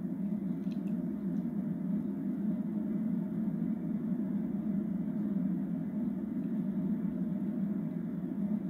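Steady low rumble played through a television's speaker from a Falcon 9 launch webcast during first-stage ascent, with no distinct events.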